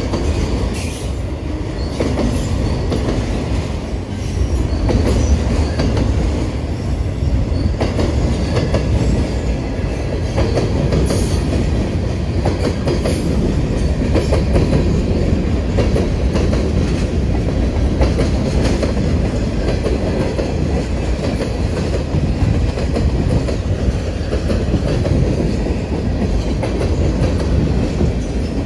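A mixed freight train's cars (autoracks, covered hoppers and boxcars) rolling steadily past close by. The wheels give a continuous rolling noise with clacking over the rail joints, and now and then a wheel squeal.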